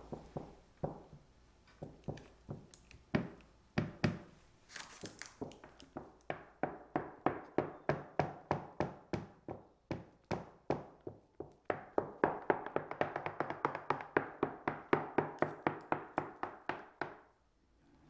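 Quick light taps, irregular at first and then an even run of about four or five a second. They come as strawberry sponge cake batter is spread level in a parchment-lined square baking pan with a plastic bench scraper.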